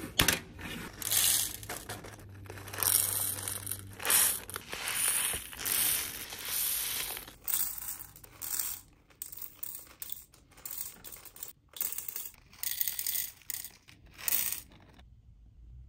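Clear plastic packaging crinkling and tearing as individually wrapped nail-art gemstones are unwrapped, in long swells at first. From about halfway, shorter crinkles and small clicks as the stones are handled and placed into a clear plastic compartment case.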